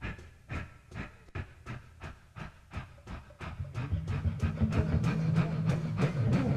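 Live rock band in a quiet, sparse passage: a steady sharp tap on the drums about twice a second. About three and a half seconds in, low bass and guitar notes come in and the music grows louder.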